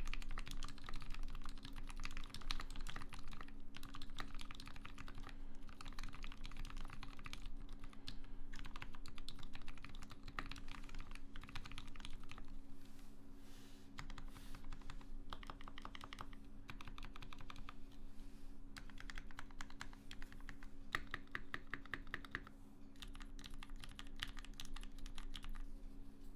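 Fast typing on a TX75v2 mechanical keyboard with lubed JWK silent switches, a brass plate and GMK keycaps: a dense stream of muted keystrokes in runs with brief pauses between words and phrases.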